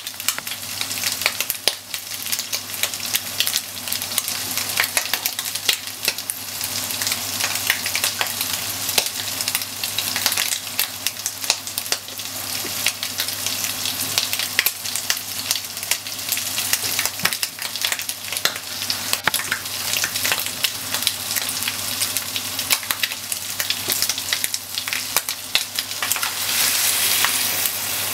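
Sliced onion and bacon sizzling and crackling in a hot nonstick frying pan, with many sharp pops through a steady hiss. Near the end the sizzle swells into a louder hiss as milk goes into the hot pan.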